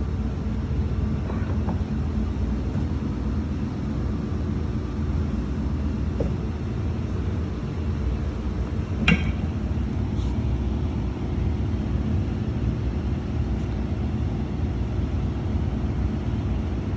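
Steady low background rumble, with one sharp metallic clink about nine seconds in and a few faint ticks.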